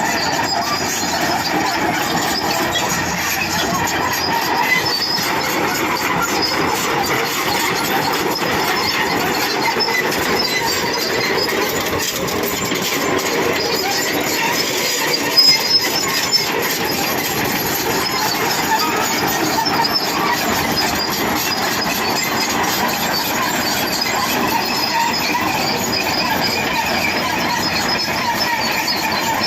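Hitachi crawler excavator travelling on its steel tracks, with a steady squealing and grinding from the track links and rollers. A couple of louder knocks come about halfway through.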